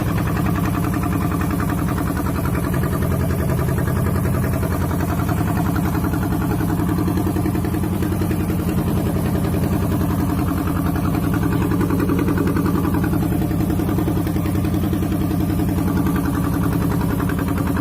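Fishing boat's engine running steadily at an even pace, with a fast regular beat and no change in speed.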